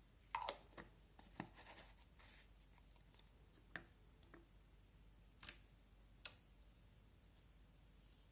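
Slime being handled and mixed: scattered small clicks and pops, several in the first two seconds, then a few single ones.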